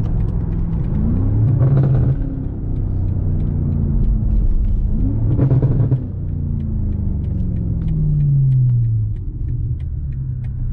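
BMW M5 Competition's twin-turbo V8 accelerating hard: the engine note climbs and drops sharply twice at quick upshifts, then the pitch falls away steadily as it eases off.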